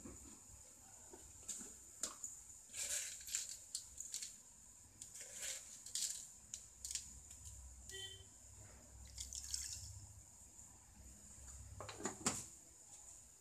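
Pot of tomato rasam simmering on the stove, giving soft, irregular bubbling and popping at the surface, over a faint steady high whine.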